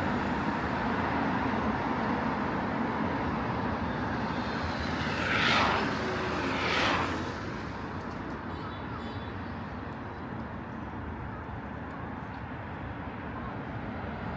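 Steady city street traffic noise, with two short louder whooshes a little over a second apart about halfway through, as vehicles pass close by.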